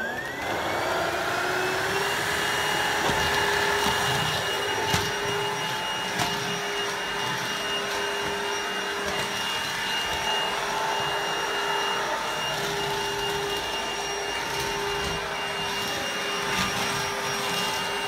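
Vax SlimVac 22.2 V cordless stick vacuum switched on, its motor whining up to speed over about two seconds, then running steadily with its motorised brush roll as the floor head is pushed over laminate flooring. A few light knocks along the way.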